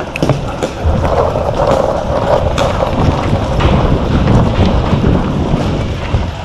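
Wind and movement rumble on a body-worn camera microphone, with irregular footsteps and knocks.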